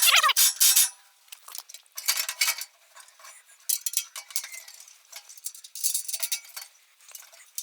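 Irregular metallic clinks, scrapes and rattles, as metal machine parts and tools are handled during assembly. The sounds are loudest in the first second and come in short scattered bursts after that.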